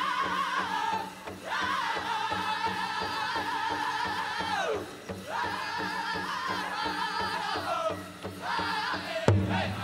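Pow wow drum group singing a men's chicken dance song: high-pitched voices in unison, held in long phrases that fall in pitch at their ends. Heavy strikes on the big drum come in near the end.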